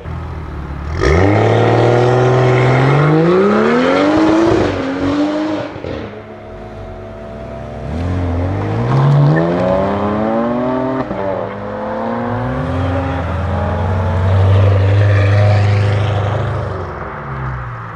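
A BMW M car's engine and exhaust accelerating hard, the pitch climbing in two pulls that each end in a sudden drop, then holding a steady lower note near the end.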